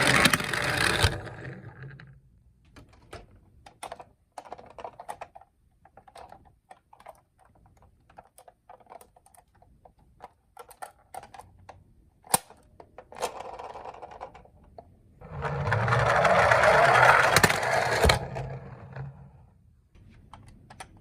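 Toy cars clicking and clattering as they are handled, in scattered sharp clicks. A louder rattling rush of noise fades out in the first second and a half, and another runs for about two and a half seconds near three-quarters of the way through.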